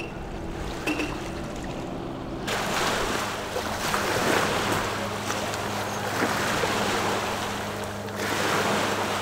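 Ocean surf washing on the shore with wind on the microphone. It comes in suddenly about two and a half seconds in, after a quieter stretch with a low steady hum, and swells and eases in waves.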